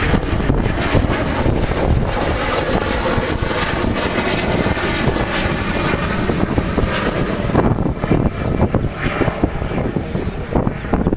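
Boeing 737-400 airliner's CFM56 turbofan engines running, a loud steady jet noise, with wind buffeting the microphone.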